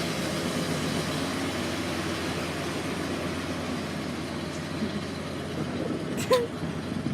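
Pickup truck engine running with a steady rumble that slowly eases off. About six seconds in comes one short, sharp squeak.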